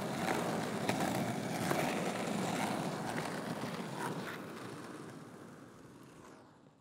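Skateboard wheels rolling on pavement with a few sharp clicks, the rolling fading away to silence near the end.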